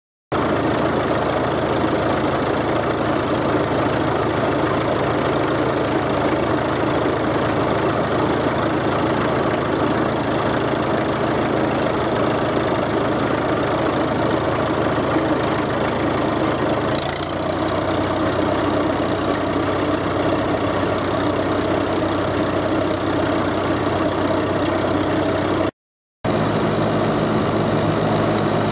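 Tractor engine running steadily on the move, heard from the tractor itself close to its upright exhaust stack. The engine note steps down a little over halfway through, and the sound cuts out briefly near the end.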